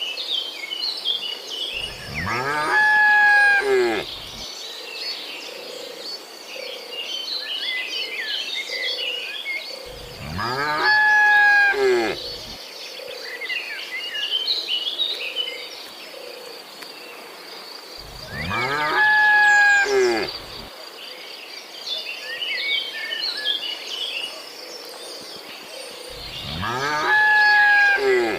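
Cow mooing: four long, identical moos at even intervals about eight seconds apart, each rising and then falling in pitch. Between them, birds chirp over a steady high insect drone.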